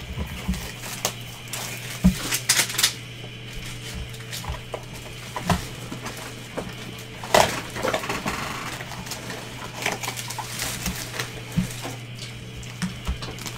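Gloved hands opening a sealed trading-card box and handling its wrapped packs: crinkling wrapper, cardboard sliding and scraping, and scattered taps and clicks, with a sharper knock about two seconds in and another about seven seconds in. A steady low hum runs underneath.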